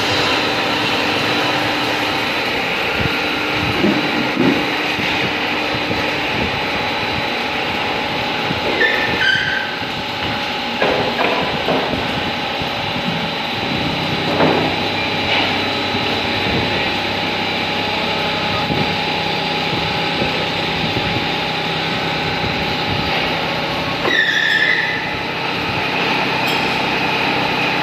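Steady running noise of machinery in a CNC turning shop, with several steady whining tones. Two brief high squeals fall in pitch, one about nine seconds in and one near the end.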